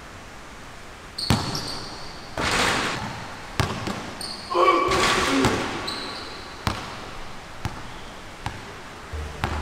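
Basketball bouncing on a hard indoor court: about six separate bounces spread out, not a steady dribble, with short high squeaks of sneakers on the floor.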